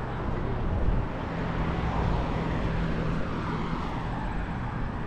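Street traffic noise: a steady wash of passing cars and tyre noise, with a low steady drone for a couple of seconds in the middle.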